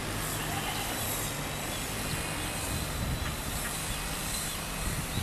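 Steady outdoor background noise: a low rumble with an even hiss over it, with no distinct event standing out.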